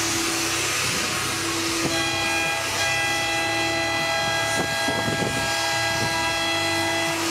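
Several ships' horns blowing at once in long, overlapping blasts of different pitches, a low horn and a higher one cutting in and out, over a steady rushing noise.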